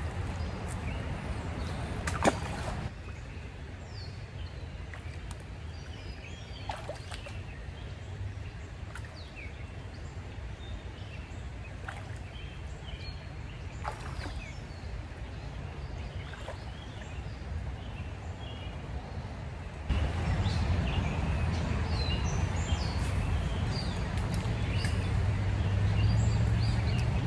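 Outdoor river ambience: shallow water running over stones, with birds chirping and now and then the splash of someone wading. The low rumble of the water gets louder about two-thirds of the way through.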